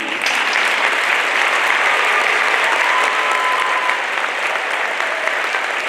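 A large audience applauding steadily, the clapping starting at once and holding at an even level.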